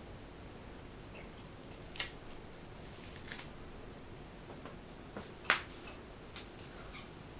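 Faint steady background hum with a few short, sharp clicks at uneven spacing, the loudest about five and a half seconds in.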